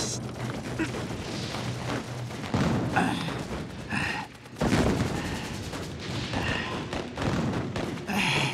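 Gunfire and booms from a TV war drama's soundtrack: several sudden shots and blasts, the sharpest about two and a half and nearly five seconds in.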